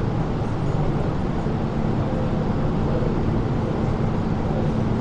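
Steady low hum and rumble of an MTR metro train standing at an underground platform behind closed screen doors, mixed with the station's steady ventilation noise.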